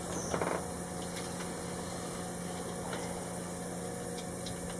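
Small boat bilge pump motor running with a steady electric hum. A short plastic rasp about half a second in, as a cable tie is pulled tight around the wiring.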